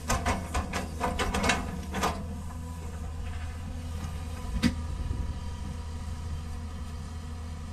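Sunward amphibious excavator's diesel engine running steadily with a low hum. A quick run of sharp knocks and clanks fills the first two seconds, and one more sharp knock comes a little past halfway.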